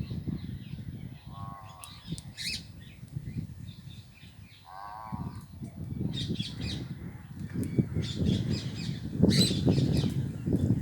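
Indian ringneck parakeets chirping in short, high bursts, with two lower, harsher calls about a second and five seconds in, over a steady low crackling rumble.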